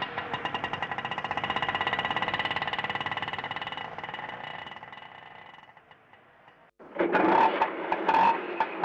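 Auto rickshaw's small single-cylinder engine running with a fast, even putter. It fades away over a few seconds to near silence, then comes back in loudly about seven seconds in.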